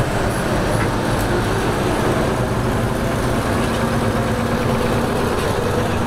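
Classic cars driving past one after another at low speed: engines running and tyres on asphalt, first a 1950s Chevrolet pickup truck, then a two-tone 1950s Buick. A steady, even traffic noise, with an engine hum standing out for a few seconds in the middle as the Buick goes by.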